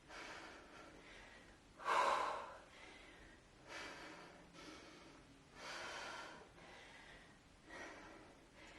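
A woman breathing hard under exertion during kettlebell rows and deadlifts: about six forceful breaths one or two seconds apart, the loudest about two seconds in.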